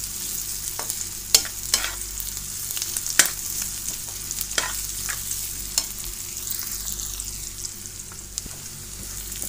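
Sliced onions and green chillies sizzling in hot oil in a frying pan, stirred with a metal spoon that scrapes and strikes the pan in several sharp clinks.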